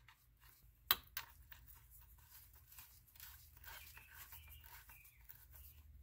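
Faint handling noises of a car strut being put back together: a sharp click about a second in, then light scraping and clicking as gloved hands work the strut top mount down over the shaft and new bearing.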